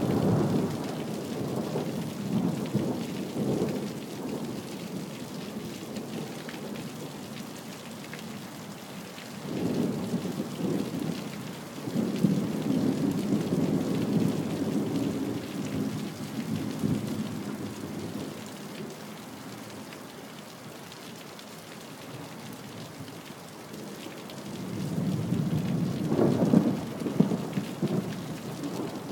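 Thunderstorm: steady rain hissing, with several rolls of thunder rumbling in and fading away. The longest roll comes near the middle and another swells near the end.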